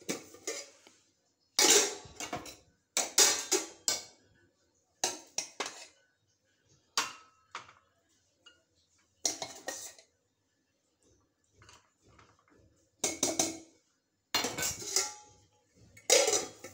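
A stainless steel pot lid and a serving spoon clank and scrape against a steel pot as cooked rice is dished out into a bowl. The sound is a run of irregular metallic clinks and clatters, a second or two apart.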